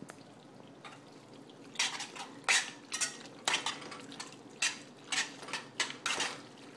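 Spoon stirring macaroni and cheese in a pot, scraping and clinking against the pot in a run of short strokes, about two a second, that starts a couple of seconds in.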